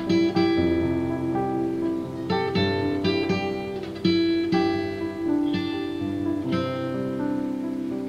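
Acoustic guitar music: plucked chords and single notes, each ringing and fading before the next.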